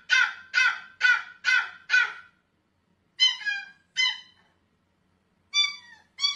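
Puppy barking at a closed door: a quick run of five high-pitched barks about two a second, then after a pause two more, and another pair near the end, the later barks dropping in pitch.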